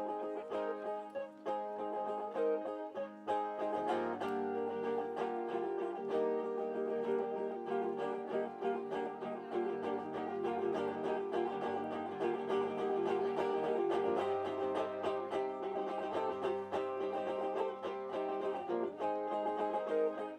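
Plucked-string instrumental passage with quick picked notes over sustained chords, changing chord about four seconds in and again near the end.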